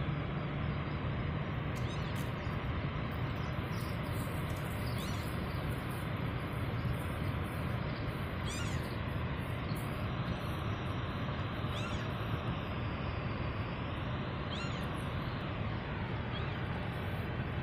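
Steady rush of water pouring over a dam spillway. Short, high, rising bird calls sound a handful of times.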